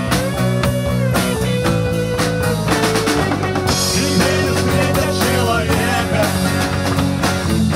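Rock band playing live: drum kit, bass guitar, electric guitar and an amplified acoustic guitar.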